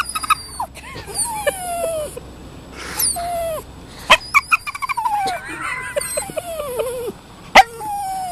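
Toy poodle whining in a run of high squeaky cries and falling whistle-like glides, a dolphin-like chatter, broken by a couple of short sharp yelps, the loudest about seven and a half seconds in. It is the frightened whine of a dog that is afraid of ducks.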